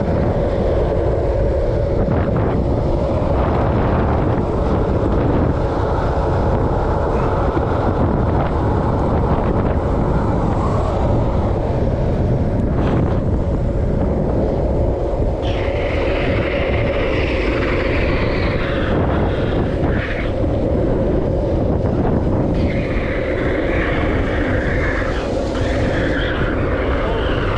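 Steady wind rush over the microphone and the rolling roar of wheels on asphalt during a fast downhill ride at about 24 mph, with a steady hum underneath. From about halfway, higher shifting sounds come in on top.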